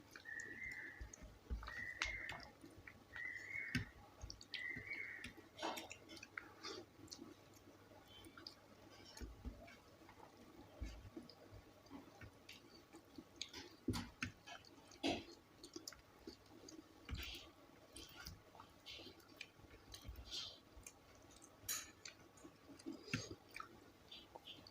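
Faint close-up eating sounds: chewing with scattered wet mouth clicks and smacks as rice and mashed bhorta are eaten. In the first few seconds a faint short chirp repeats four times.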